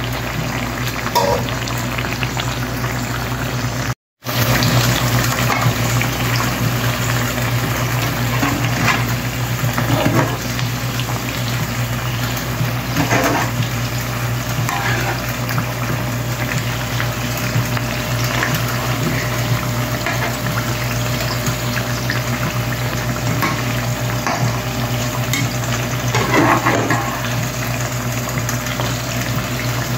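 Sweet potato slices frying in hot oil and brown sugar, a steady bubbling sizzle over a low hum, with a few short scrapes of a slotted spatula turning the slices. The sound cuts out completely for a moment about four seconds in.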